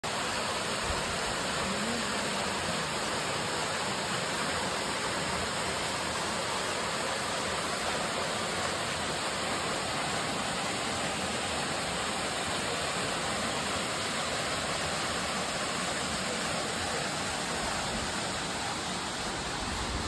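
Waterfall pouring into a rock pool: a steady, unbroken rush of falling water, a little fainter in the last couple of seconds.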